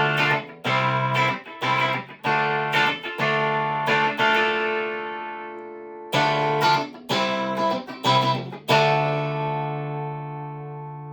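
Electric guitar, a Stratocaster with single-coil pickups wired in the Memphis scheme, playing a run of picked chords with short breaks between them. Near the end a final chord is left ringing out.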